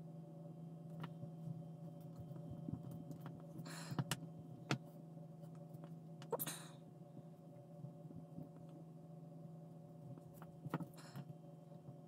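Quiet handling of small plastic model-kit parts during wheel assembly: scattered light clicks and taps, and three brief hissing sounds about 4, 6.5 and 11 seconds in, over a steady low hum.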